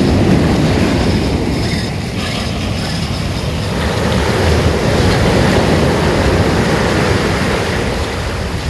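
Ocean surf breaking and washing up the beach, with wind buffeting the microphone. The wash swells at the start and again about four seconds in.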